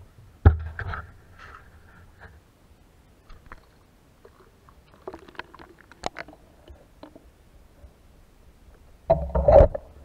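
Muffled knocks, bumps and low rumbling from an underwater action camera on an ice-fishing line as it moves down the hole through the ice. There is one sharp knock about half a second in and a louder bout of bumping near the end.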